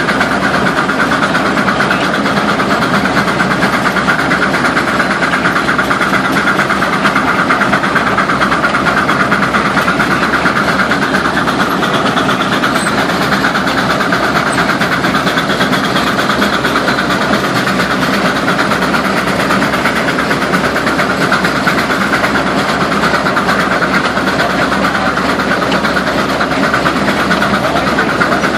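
Case steam traction engine working under load as it pulls a plow through the soil, a steady, loud, unbroken running noise mixed with the plow's own working sound.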